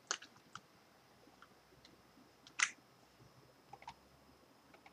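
A handful of scattered computer keyboard keystrokes with long quiet gaps between them, the loudest about two and a half seconds in and two in quick succession shortly after.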